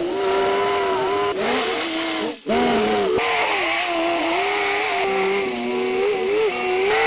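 An engine running at a steady, fairly high pitch that dips and rises several times, cutting out briefly about two and a half seconds in.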